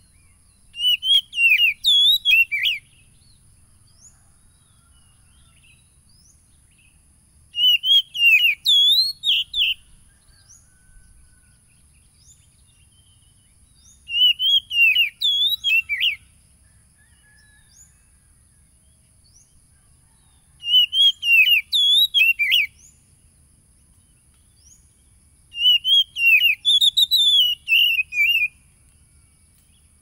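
Oriental magpie-robin (kacer) singing: five short phrases of rapid whistled notes that sweep up and down, each about two seconds long and about six seconds apart.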